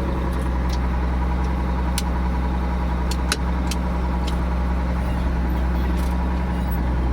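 Ford 9700 tractor's six-cylinder diesel engine running steadily at an even pitch, with a few faint clicks about two to four seconds in.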